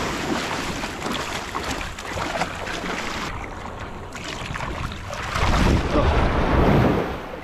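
Water splashing in shallow surf around a wading person and a snook held in the water, with wind buffeting the microphone; louder for a second or two near the end.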